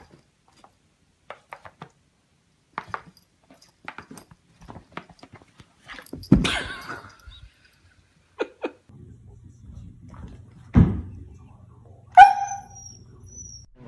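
Light taps and clicks of a cat pawing at a tablet screen on a bed, then a loud thump about six seconds in. After a cut, another thump near the end, then one short, sharp husky yelp, the loudest sound, with a thin high tone trailing after it.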